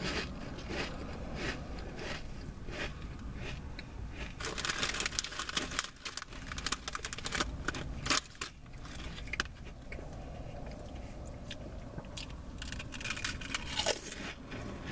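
Close-up crunching and chewing of baked potato chips, with dense runs of crunches about four to six seconds in and again near the end.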